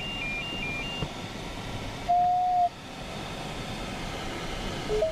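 Airflow noise in a glider's cockpit with electronic beeps from the flight instruments: a two-tone high-low beep alternating about twice a second stops about a second in, then a single louder steady beep lasting about half a second comes a little after two seconds in.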